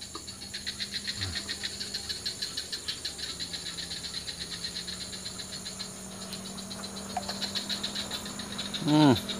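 Steady rhythmic high-pitched chirping of insects, about six pulses a second, over a faint steady low hum.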